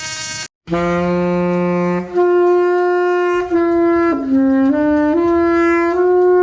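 About half a second in, one clip cuts off and after a brief gap a solo wind instrument begins a slow melody of long held notes, stepping up and down in pitch.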